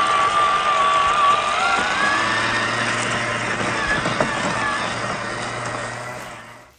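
Small electric RC car motor and gearbox whining, the pitch climbing steadily as it speeds up, then fading out near the end.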